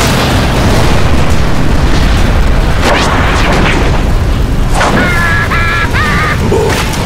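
Cartoon blizzard wind, a loud steady rush with heavy low rumble, that starts suddenly. About five seconds in, a cartoon larva gives high squealing cries over it.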